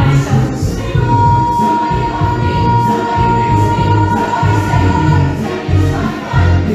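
A musical theatre cast sings together over a band, with one long high note held for about four seconds from about a second in.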